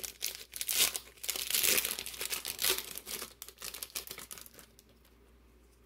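Foil wrapper of a trading-card pack crinkling and tearing as it is ripped open and the cards slid out, dying away about four seconds in.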